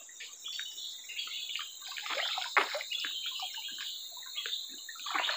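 Water splashing and dripping irregularly off a wet fishing net as it is hauled out of the river into a wooden canoe, with one sharper splash about two and a half seconds in. A steady high insect drone runs underneath.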